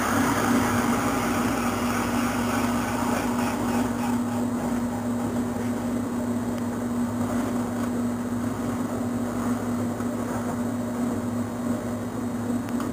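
Kart tire-cutting machine running steadily, its motor spinning a Burris 33A dirt-kart tire on the shaft with a steady hum; a hiss that is louder at the very start fades within the first second.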